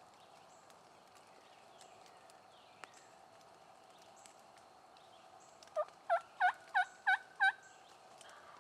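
A wild turkey calling: a string of six evenly spaced yelps, about three a second, over faint steady background birdsong.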